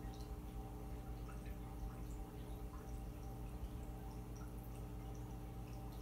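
Aquarium air bubbler: a steady low hum under a continual patter of small drip-like pops as the stream of air bubbles breaks the water surface.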